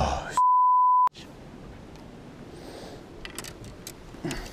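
The end of a shouted exclamation, then a censor bleep: one steady, pure high beep lasting under a second, with all other sound cut out beneath it, masking a swear word. After it there is quiet open-air background with a few faint clicks.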